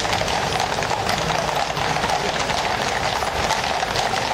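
Hooves of several grey horses walking on a tarmac road, many overlapping clip-clops.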